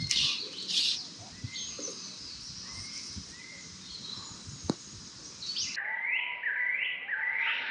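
Wild birds singing and chirping. In the last two seconds a bird gives a run of repeated rising whistled notes, about two a second, and there is a single sharp click about two-thirds of the way in.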